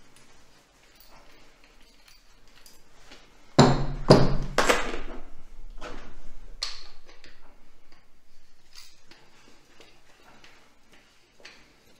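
Brass lance-holder parts handled and set down on a table: scattered metallic clinks and knocks, the loudest cluster about four seconds in.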